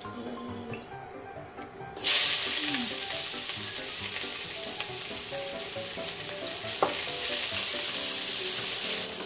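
Sliced shallots dropped into hot oil in a wok: a sudden loud sizzle starts about two seconds in and keeps on steadily as they are stir-fried with a wooden spatula, with a single sharp knock about seven seconds in. Quiet background music plays underneath, alone before the sizzle starts.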